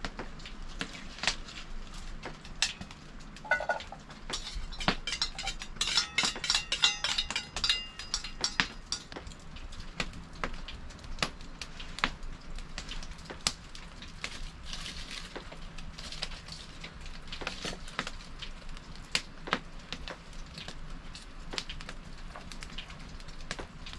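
Wood fire crackling and popping, with irregular sharp snaps over a low steady hiss. The snaps come thickest about five to eight seconds in.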